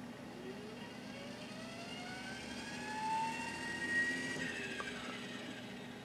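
24-volt electric HVAC damper motor running as it swings the damper blade open: a faint whine that slowly rises in pitch, then dips and fades out about four and a half seconds in, over a steady low hum.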